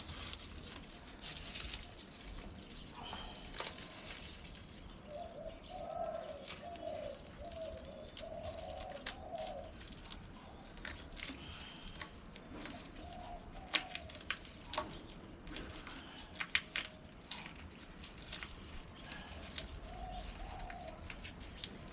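A bird cooing in a run of low, repeated calls about five seconds in, with a few more coos later, over scattered sharp clicks and knocks.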